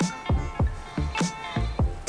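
Background music with a steady beat: deep bass drum hits that drop in pitch, several times a second, with hi-hat ticks and held synth notes over them.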